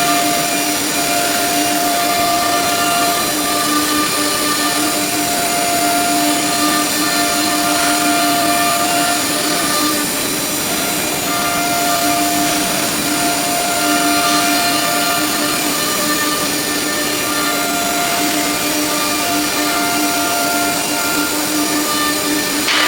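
ELE-1530 nesting CNC router running on wood: a steady, loud machine whine with several tones that cut out and come back every second or two. A louder hiss sets in near the end.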